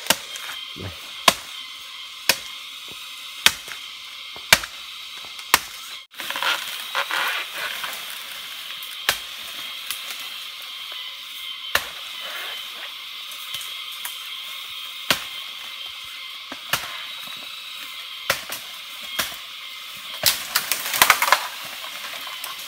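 Sharp chopping blows of a blade cutting into plant stalks, irregular and roughly one every second or two, with a quick flurry of blows near the end.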